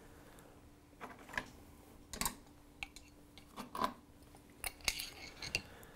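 Hands working small hardware on an electric guitar body: about ten light, scattered clicks and taps at an uneven pace.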